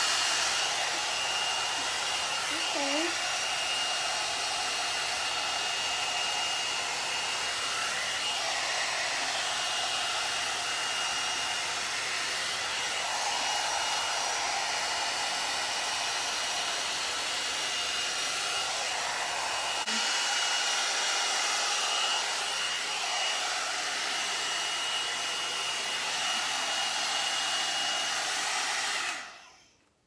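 One-step hot-air dryer brush, a knock-off of the Revlon One-Step, running on its high setting while it is brushed through thick hair: a steady rush of air with a thin, steady whine. It is switched off and cuts out suddenly just before the end.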